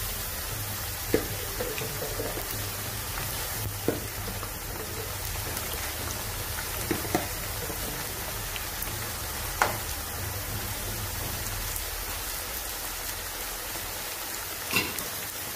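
Eggplant slices frying in hot oil in a frying pan: a steady sizzle, with a few sharp clicks and pops scattered through it.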